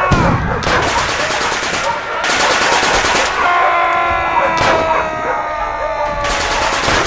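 Three bursts of rapid machine-gun fire, a war-film sound effect, with held pitched tones running underneath.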